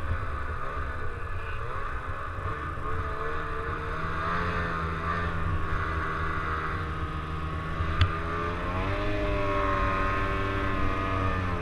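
Ski-Doo snowmobile engine running hard under heavy throttle, its pitch wavering with the throttle and climbing about three-quarters of the way through. A single sharp click sounds about eight seconds in.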